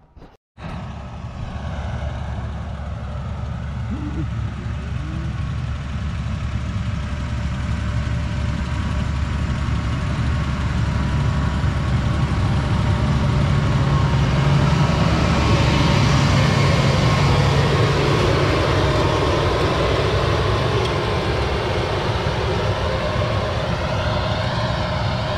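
Large tractor pulling a combined cultivator seed drill across tilled soil, its engine running steadily under load as it passes. The sound grows louder over the first half, then eases slightly as the tractor moves away.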